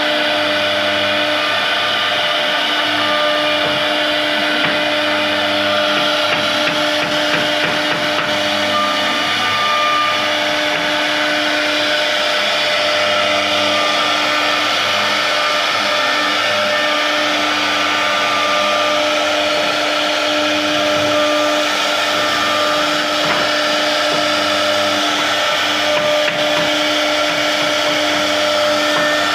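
CNC router spindle running steadily at a constant high whine as it cuts a carved design into wood, with the hiss of the cut throughout.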